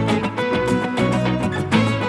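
Background music: an upbeat guitar tune with a steady beat.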